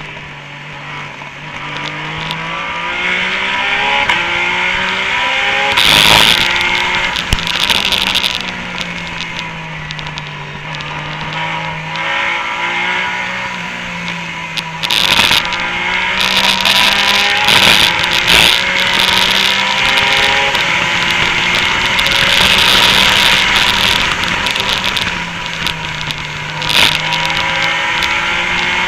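Porsche 911 GT3 Cup race car's flat-six engine accelerating hard, its pitch climbing through each gear and dropping at every upshift, over and over. A few short loud noisy bangs cut in along the way.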